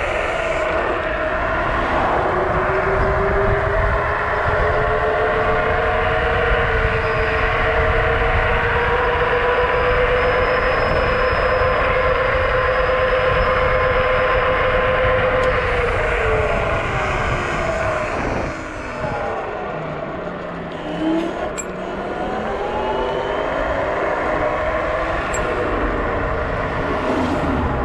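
Dual Pro (Dragon Lightning V2) electric scooter at speed: the whine of its twin motors under heavy wind rush on the microphone. The whine climbs slowly as the scooter speeds up, then falls away about sixteen seconds in as it slows down.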